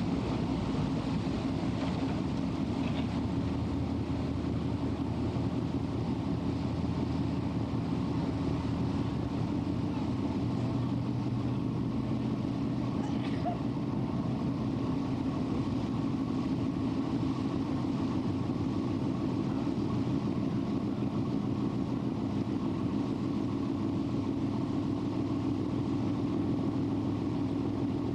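Steady drone of a lake cruise boat's engine, heard on board while the boat is under way, with a constant low hum that holds the same pitch throughout.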